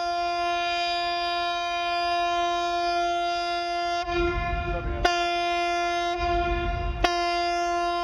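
Ship's horn of the Coast Guard seagoing buoy tender Alder (WLB-216) sounding one long, steady, high blast, held throughout, with brief clicks about five and seven seconds in.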